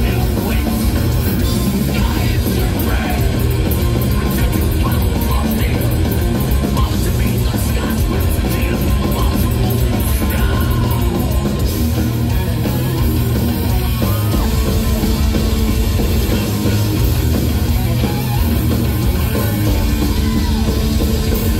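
Heavy metal band playing live through a loud stage PA, with distorted electric guitars, drums and a shouting singer, heard from the crowd.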